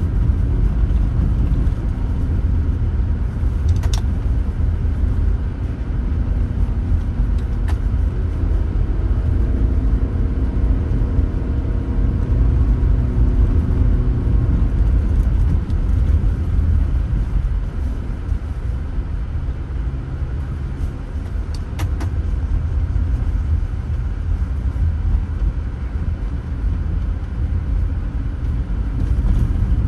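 Car driving on the road: a steady low rumble of engine and tyre noise, with the engine note rising for a few seconds near the middle and a few sharp clicks scattered through.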